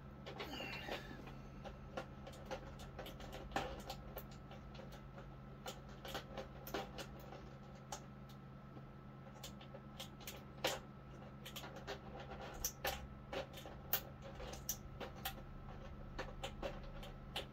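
Irregular light clicks and taps of small plastic figure parts being handled, over a steady low hum.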